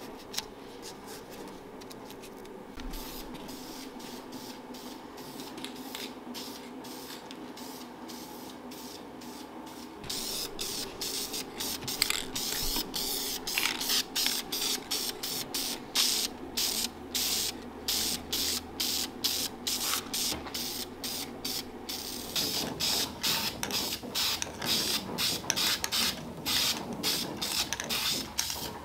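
Aerosol spray paint hissing in many short, quick bursts, starting about ten seconds in and going on to the end. Before that there are quieter, scattered ticks.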